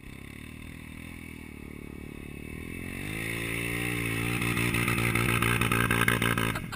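Motorcycle engine running and growing steadily louder, its note rising about three seconds in and then holding, before the sound cuts off abruptly at the end.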